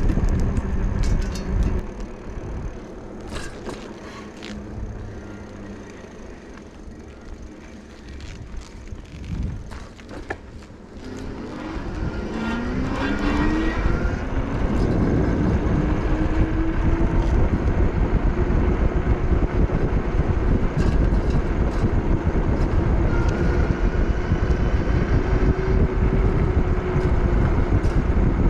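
Engwe Engine Pro electric bike riding on pavement, with wind rushing over the microphone. It is quieter for several seconds; then, about twelve seconds in, the hub motor's whine rises in pitch and the wind grows loud as the bike speeds up, holding steady after that.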